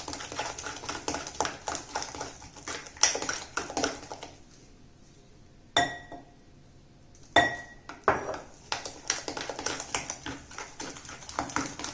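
Steel spoon beating thick gram-flour batter in a glass bowl: rapid scraping, clinking strokes against the glass. Near the middle the beating stops and metal strikes the bowl twice with a ringing clink, then the quick beating resumes.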